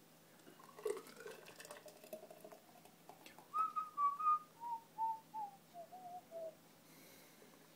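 A person whistling a short tune: a few soft notes, then a run of brief notes stepping downward in pitch for about three seconds.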